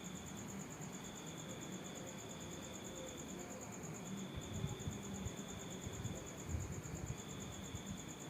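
Crickets chirping: a high, fast, evenly pulsed trill that breaks off briefly about halfway, over a lower insect call in phrases of about two seconds with short gaps. Soft low knocks come and go in the middle.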